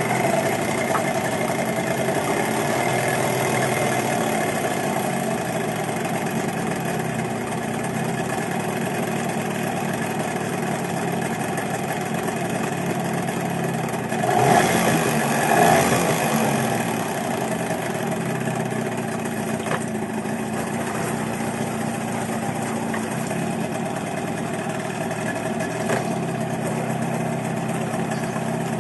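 A 15 hp outboard motor running at a steady idle, revved up briefly about halfway through and then settling back to idle.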